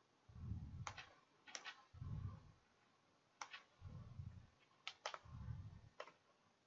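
Faint computer keyboard keystrokes: scattered single key clicks, often in pairs, as code is typed and pasted. Between them come four low, muffled puffs of about half a second each.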